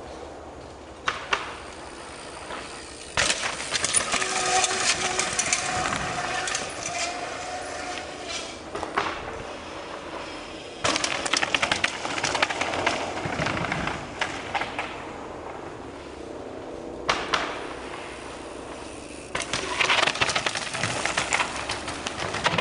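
Downhill mountain bikes rattling and clattering down a rough forest trail, in three long passes with quieter stretches between.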